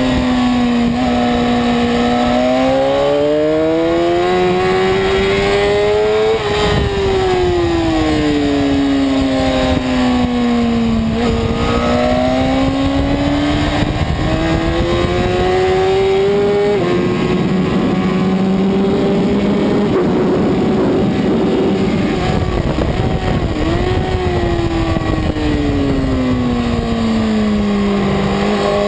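Kawasaki superbike's inline-four engine heard from an onboard camera at speed, its note climbing under acceleration and falling away under braking several times over the lap, with a sharp drop about six seconds in, over a steady rush of wind.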